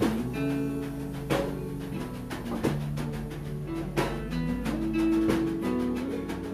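Small acoustic band playing live: acoustic guitars over a bass line, with percussion marking a sharp accented hit about every second and a third.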